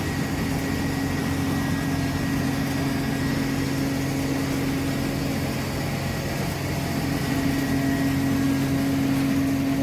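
Tractor engine running at a steady speed, driving a PTO-powered feed grinder, in a continuous even hum; one tone in the hum grows a little stronger about seven seconds in.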